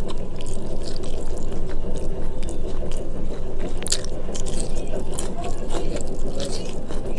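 Eating sounds: scattered scrapes and clicks on a plate, with chewing, the sharpest scrape about four seconds in. A steady low rumble runs underneath.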